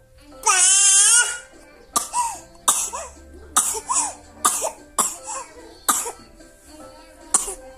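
A baby gives one loud, high-pitched scream, then breaks into a run of short coughs, choking after screaming.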